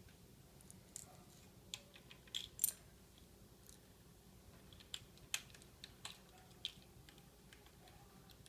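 Scattered light clicks and taps of small LEGO plastic pieces being handled, a dozen or so at irregular spacing, the loudest pair about two and a half seconds in.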